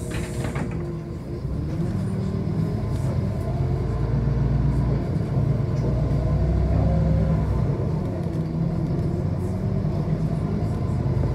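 City bus engine and running gear heard from inside the passenger cabin: a steady low rumble whose pitch rises and drops as the bus drives on. A high hiss dies away within the first second.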